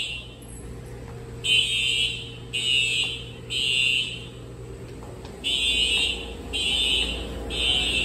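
Simplex TrueAlert fire alarm horns sounding in the three-blast evacuation pattern: three high-pitched blasts about a second apart, a pause, then three more.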